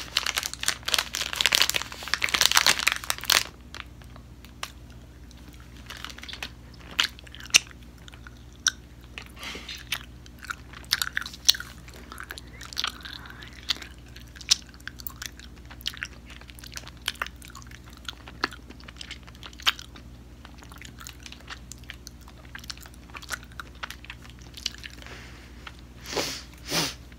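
A plastic fruit-snack pouch crinkling loudly as it is opened for the first few seconds, then close-up chewing of gummy fruit snacks: sparse wet mouth clicks and smacks.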